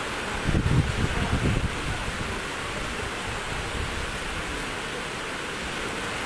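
Strong typhoon wind buffeting the phone's microphone over a steady rushing noise, with a burst of heavy low rumbling gusts between about half a second and two seconds in.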